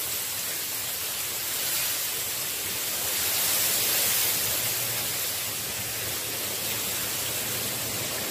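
Strong wind making a steady, noisy hiss, swelling for a couple of seconds midway and then easing.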